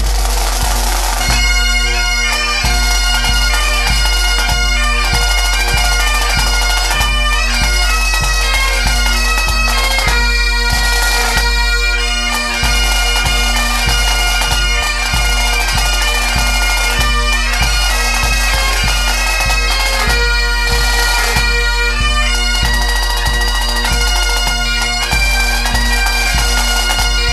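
Pipe band music: bagpipes playing a tune over their steady drone, with drums keeping a regular beat.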